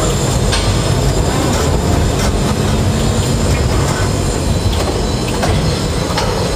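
Tower crane running, heard from inside the operator's cab: a loud steady mechanical rumble with scattered clicks and rattles. It cuts off suddenly just at the end.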